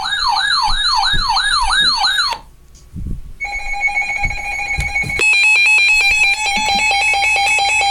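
Electronic alarm tones from weather alert receivers sounding for a severe thunderstorm warning. A siren-like warble rises and falls about three times a second and stops after about two seconds. After a brief pause with a few low thumps, a steady alert tone starts, joined at about five seconds by a rapid pulsing beep.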